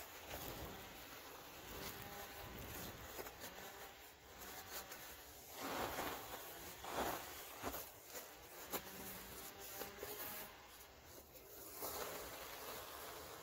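Caked white powder crumbling and falling from the hands into a plastic tub, soft rushing falls with the biggest about six and seven seconds in and another near the end.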